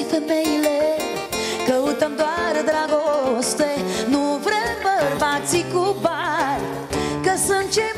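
A woman singing live into a microphone over acoustic guitar and band accompaniment, drawing out gliding, ornamented notes with a wide vibrato that is strongest about six seconds in.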